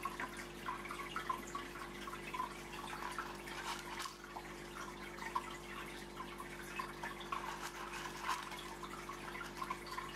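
Aquarium water bubbling and trickling, with many small irregular drips and pops over a steady low hum.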